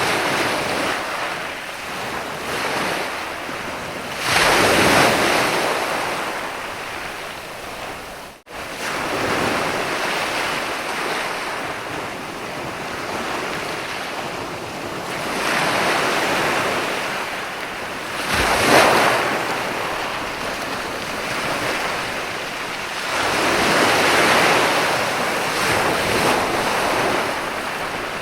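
Sea waves washing onto a sandy beach: a steady rush of surf that swells with louder breakers about four seconds in, around sixteen and nineteen seconds, and near twenty-four seconds. The sound breaks off for a moment about eight seconds in.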